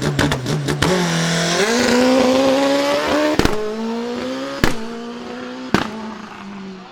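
Race car engine stuttering in a fast, even rhythm for about a second, then launching and accelerating hard. Its pitch climbs through three quick upshifts, each marked by a sharp crack, and the car gets quieter as it pulls away up the hill.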